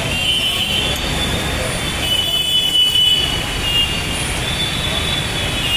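Dense city traffic on a wet road: a steady rumble of engines and tyres, with short high-pitched horn toots now and then.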